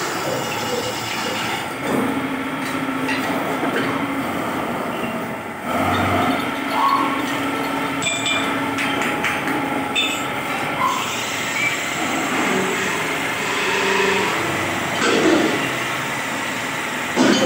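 Wood lathe running while a long hand-held turning tool scrapes and cuts a large spinning wooden cylinder: a steady rumble and scrape with a low hum, and a few sharp clicks.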